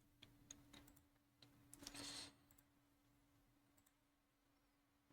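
Near silence with a few faint computer mouse clicks in the first second and a half, a short soft hiss about two seconds in, and a faint steady hum underneath.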